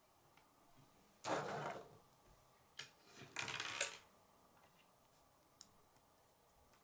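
Plastic K'nex pieces handled on a wooden tabletop: a short clatter about a second in, a sharp click, then a second clatter, followed by a few faint clicks as a rod and connector are fitted.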